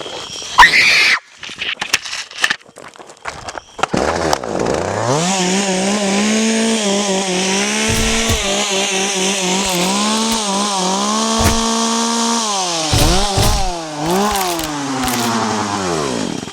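A chainsaw engine revs up about four seconds in and runs at high revs. Near the end it dips and surges a few times, then winds down. Before it starts there is a loud sharp burst and some clattering.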